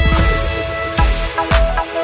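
Background music: an electronic track with held synth notes, a deep bass note at the start and a bass beat about twice a second.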